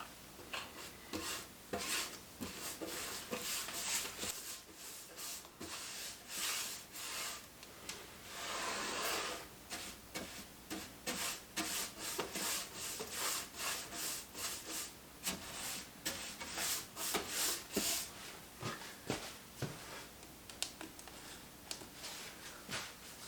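Hand work rubbing over wood in repeated short, irregular strokes, with one longer stroke about nine seconds in.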